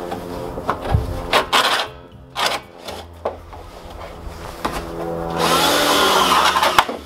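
Plastic water butts knocked and shifted by hand, then a cordless drill boring into the plastic barrel for about a second and a half near the end, its pitch rising and falling.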